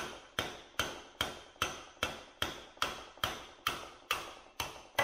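Hammer tapping steadily on a steel socket and extension, about two and a half blows a second, each with a short ring, driving the needle bearing out of a Toyota 8-inch clamshell differential carrier.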